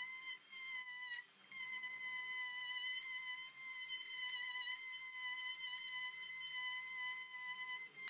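Handheld rotary tool with a pointed bit spinning at speed while carving into a walnut knife handle: a steady high-pitched whine that dips briefly in pitch and level about a second in as the bit bites.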